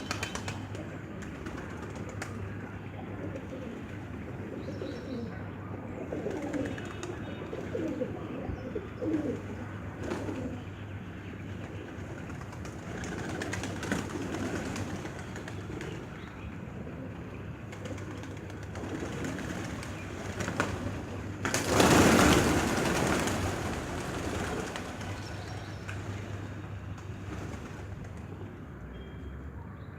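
Pigeons cooing in low, wavering calls. About two-thirds of the way through, a loud burst of rushing noise lasts about two seconds.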